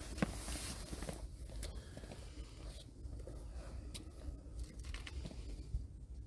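Faint rustling and small scattered clicks over a low steady rumble.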